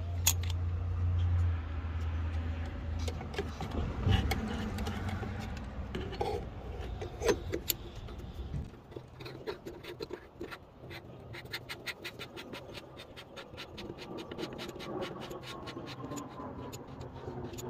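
Clicks, knocks and scrapes of a hand-held metal oil catch can and its hose clamps being worked into place in a pickup's engine bay. A low hum stops about halfway, and a fast run of light clicks follows to the end.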